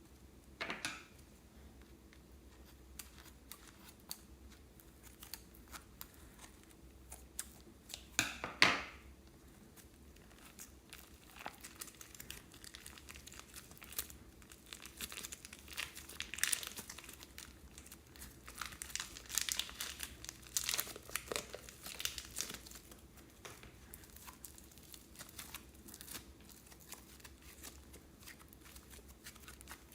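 Plastic crinkling and crackling with scattered small clicks, as when plastic piping bags of slime material are handled and squeezed. There are two louder crinkles, about a second in and again around eight to nine seconds, then a dense run of crackling through the middle.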